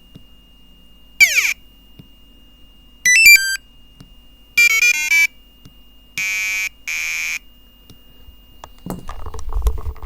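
Piezo buzzer driven by an Arduino Nano playing a run of short Star Wars-style tone effects, one per button press: a falling sweep, a quick run of stepped beeps, a chirping burst of changing tones, then two steady buzzy tones. Near the end, rustling with low thumps takes over.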